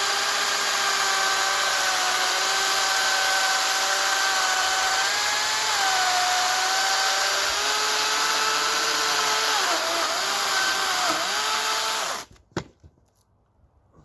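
Makita DUC355 dual-battery cordless chainsaw running and cutting through a log, its electric motor whine dipping in pitch as the chain loads up. The motor cuts off suddenly about 12 seconds in, followed by a single sharp knock.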